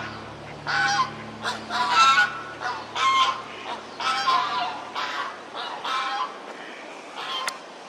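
Domestic geese honking, a string of short calls, one or two a second, with a brief lull about six seconds in.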